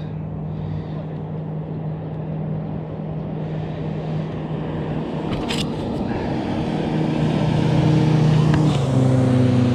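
A boat engine humming steadily and slowly growing louder, its pitch shifting to a new note near the end, with a single sharp click about halfway through.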